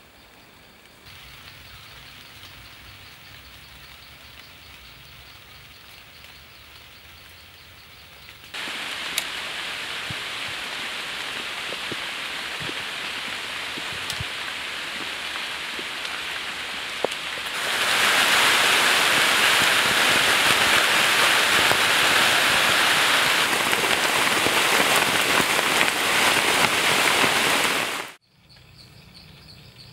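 Rain falling: a steady hiss that gets heavier in sudden steps, loudest in the second half, then cuts off abruptly near the end, leaving faint insect chirring.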